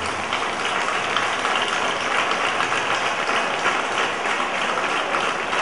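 Applause: many hands clapping in a dense, steady stream with no beat.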